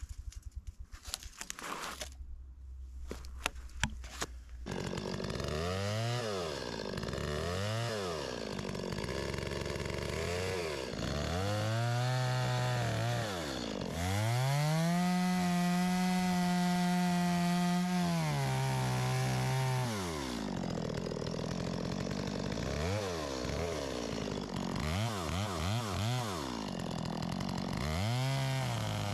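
Chainsaw revved up and down several times, then held at high speed for about four seconds as it cuts wood, dropping back to idle and blipped in short revs near the end. A run of clicks and knocks over a low idle comes first.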